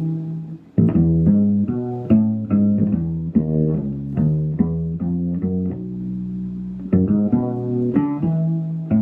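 Headless bass guitar with a Torzal fretless neck, played as a run of plucked notes about three a second, with one longer held note about six seconds in.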